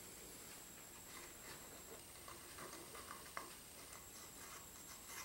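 Near silence: faint room tone with a few light ticks and one slightly sharper click about three and a half seconds in.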